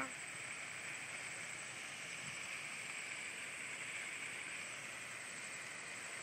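Steady rushing noise of a grass and stubble fire burning across a paddock, mixed with strong wind, with no distinct crackles standing out.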